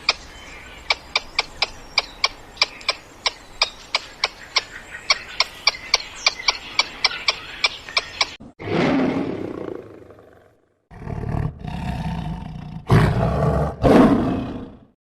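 A big cat roaring: three loud, rough roars in the second half, the last two the loudest. Before them there are about eight seconds of a fast run of sharp clicks, roughly four a second.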